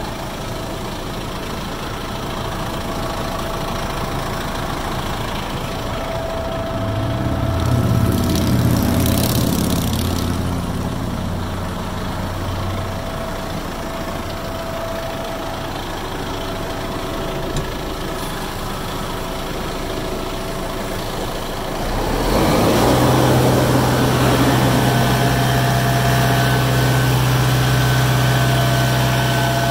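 Kubota M6-141 tractor's four-cylinder turbo diesel idling steadily. It grows louder for a few seconds about eight seconds in, and again over the last quarter.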